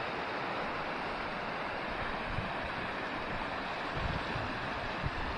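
Steady rushing of a shallow, rocky mountain stream, with a few low wind thumps on the microphone in the second half.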